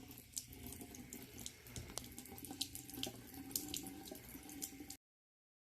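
Water running from a tap into a sink, with small splashing ticks, fairly quiet; it stops abruptly about five seconds in.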